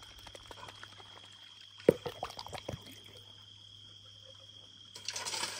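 Plastic snuffer bottle being squeezed out into a water-filled gold pan: a sharp click about two seconds in, then a short run of gurgles and small splashes as the concentrate goes into the water. A louder rustling noise comes in near the end.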